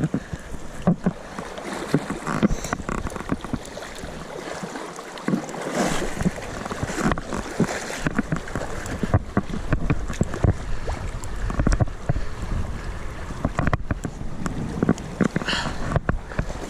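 Rushing river water with irregular splashes and knocks, and wind buffeting the microphone.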